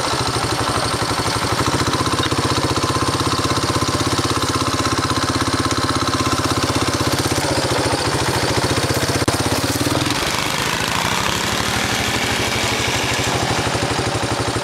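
Tao Tao 110cc ATV's small four-stroke single-cylinder engine running steadily. About ten seconds in the engine note drops, then climbs again as it is throttled back up.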